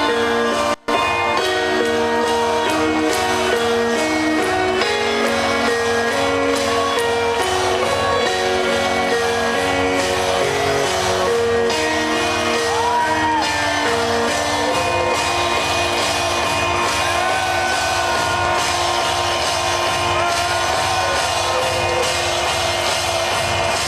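Loud electronic dance music from a live DJ set over a venue sound system: sustained synth chords that shift every second or so, with a brief dropout about a second in.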